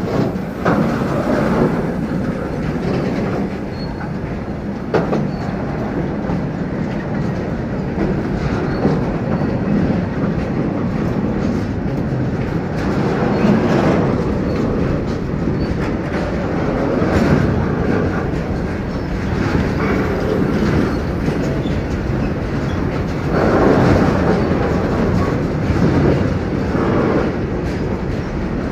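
Freight train wagons rolling past at close range: a steady, loud rumble and clatter of steel wheels on the rails that swells and eases as bogies go by, with a sharp click about five seconds in.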